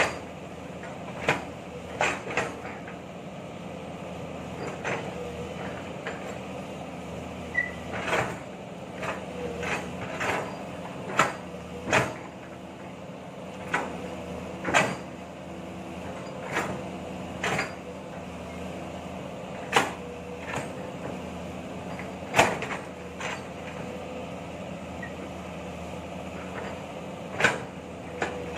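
Long-arm excavator digging soil: a diesel engine runs steadily while the bucket and arm linkage give sharp clanks and knocks, about one every second or two.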